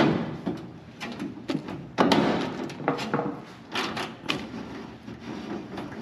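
Irregular knocks and clicks of a socket wrench and extension against the car body's metal as a body bolt is worked into its hole, the loudest knock about two seconds in.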